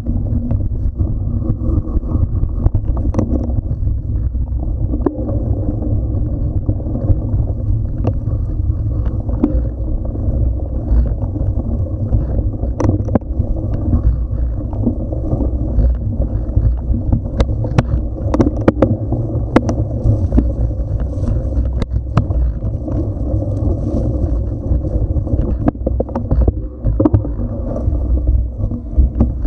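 Mountain bike riding fast over a bumpy dirt trail: a steady low rumble of knobby tyres and wind on the microphone, with frequent rattles and clicks from the bike jolting over bumps.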